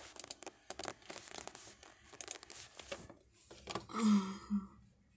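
Close handling noise: crinkly rustling and scattered clicks. About four seconds in there is a brief low sound of a voice, in two short parts.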